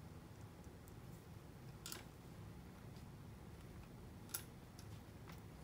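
Near silence broken by a few faint clicks, two of them a couple of seconds apart, from small wires being handled and pulled through a motorcycle handlebar.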